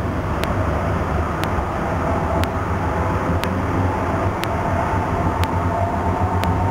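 Calgary C-Train light-rail car running along the track, heard from inside the passenger car: a steady low rumble, with a faint steady whine coming in about halfway through.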